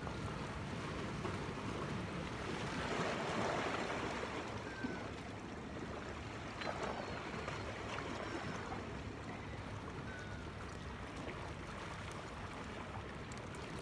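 Sea waves washing and lapping against a rocky shore, a steady rush of water with one louder surge a few seconds in.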